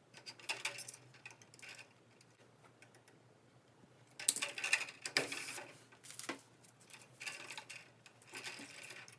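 Irregular clicking and rustling as electrical cable and its wires are handled and pushed into an outlet box, in three spells of a second or two each.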